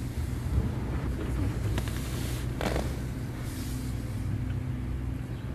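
Construction machinery engine running with a steady low rumble, with a short clatter about two and a half seconds in and a steady hum joining about three seconds in.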